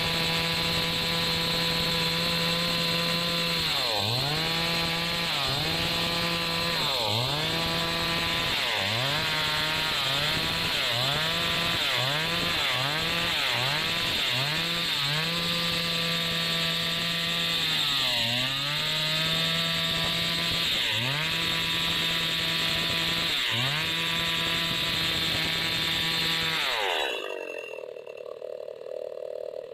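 Stihl chainsaw running at full throttle while ripping a log lengthwise into a plank. Its engine note dips and recovers again and again as the chain bogs under load in the cut, then the saw sound drops away sharply near the end.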